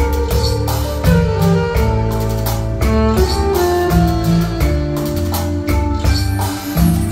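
Instrumental introduction of a Vietnamese duet song: band music with a steady drum beat, a bass line and held melody notes, before the singing comes in.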